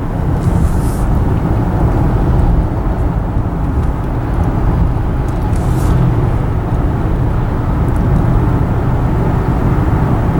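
Steady low rumble of a car driving along a road, tyre and engine noise heard from inside the cabin, with a couple of brief faint hisses.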